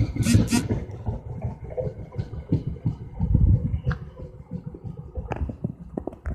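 Passenger train cars rolling past close by: a steady low rumble with scattered knocks, and a short hiss near the start.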